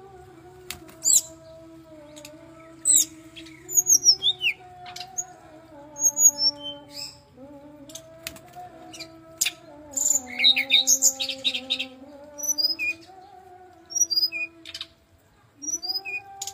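Brown-chested jungle flycatcher singing: short, high whistled notes, several sliding downward, with a quick rattling trill about two-thirds of the way in. A low hum that slowly wavers in pitch runs beneath.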